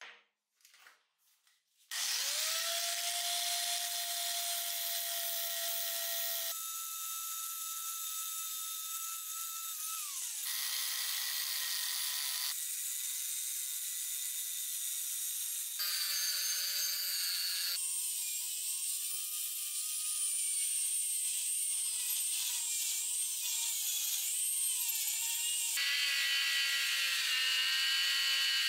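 Electric power tools working a metal rail in a series of short cut-together takes: an angle grinder with an abrasive disc and a rotary tool with a sanding drum. The motor whine is steady within each take and shifts pitch at every cut, wavering under load in places. It is preceded by a few light knocks as the part is handled.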